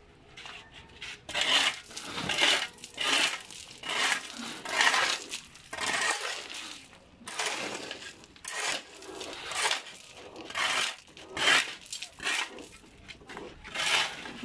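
Steel shovels scraping across a concrete floor and scooping gravel, with the stones clattering. The scrapes come in an uneven run of about one a second.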